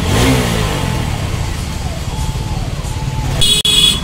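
Engine and street-traffic noise with a steady low rumble, and an engine revving briefly at the start. A short high-pitched blare like a horn or buzzer sounds near the end and is cut off abruptly.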